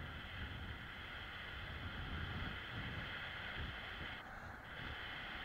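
Wind buffeting the camera microphone over a steady hiss of water rushing past a kitefoil board moving across the lake. The hiss drops out briefly about four seconds in.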